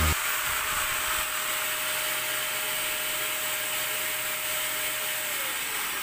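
Lotus 20-litre wet/dry vacuum cleaner's motor running with a steady airflow hiss. About five seconds in, its whine falls in pitch as it winds down. It is being shut off by the automatic power-tool switch a few seconds after the jigsaw plugged into it is switched off.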